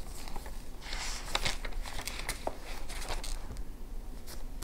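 Paper pages of a Hobonichi Techo planner being turned by hand: irregular paper rustling and crinkling, loudest about a second in, with a few light clicks.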